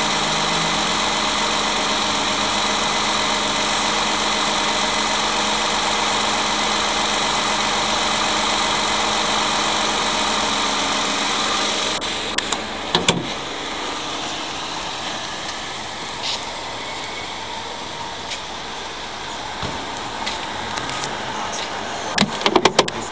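Toyota Aurion 3.5-litre V6 engine (2GR-FE) idling steadily. About halfway through it drops to a quieter idle, with a couple of sharp clicks just after and a run of knocks near the end.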